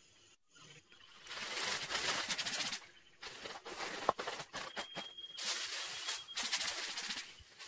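Baking parchment rustling as it is spread over a roasting dish, then aluminium foil crinkling as it is laid on top. The sound comes in two long spells of crinkling, the first starting about a second in and the second starting about three seconds in.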